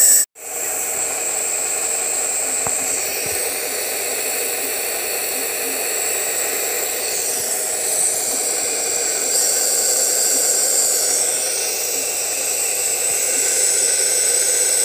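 Nebulizer compressor running with a steady whir and hiss, which cuts out for a moment just after the start and comes straight back.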